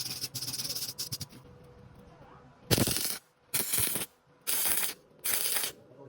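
Welding arc crackling on thin iron sheet, first in a short run and then in four separate bursts of about half a second each, spaced under a second apart: the arc struck and broken in stitches so as not to burn through the thin metal.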